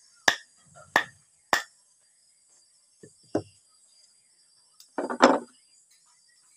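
Sharp metal knocks and a clatter as the housing of a Makita 9527NB angle grinder is worked off its armature: three sharp knocks in the first second and a half, two lighter ones about three seconds in, and a longer clatter about five seconds in as the armature comes free.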